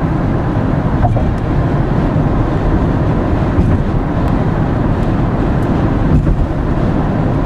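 Steady low road rumble and engine noise inside a moving car's cabin.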